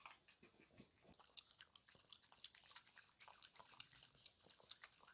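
Faint wet smacking and clicking of a French bulldog licking fruit purée: a quick, irregular run of small licks.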